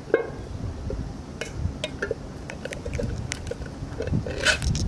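Ring-pull lid of a metal can being opened: a series of small metal clicks and creaks over a low rumble of handling. A louder cluster of crackles comes near the end as the lid tears open.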